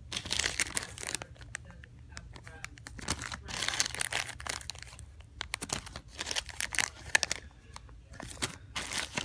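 Clear plastic zip-lock bags crinkling and rustling as they are handled, in repeated bursts of crackling.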